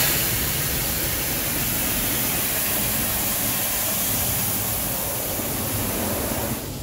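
Steady hiss of water spraying onto a cargo van from the spray arm of a Ryko Radius automatic car wash, heard from inside the cabin. It cuts off near the end.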